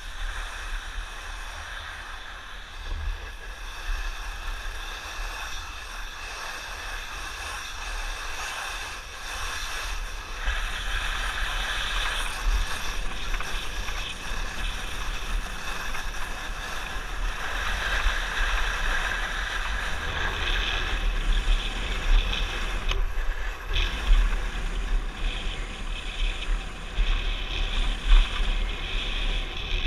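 Wind buffeting a camera microphone during a downhill ski run, with the hiss of skis sliding over groomed snow. It is steady, and louder and rougher from about ten seconds in.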